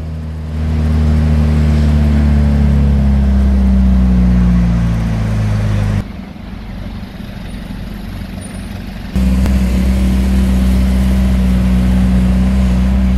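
Engine drone and road noise heard from inside a moving vehicle, a steady low hum whose pitch eases down about four to five seconds in. It cuts abruptly about six seconds in to a quieter stretch of road noise, and the loud engine drone cuts back in about nine seconds in.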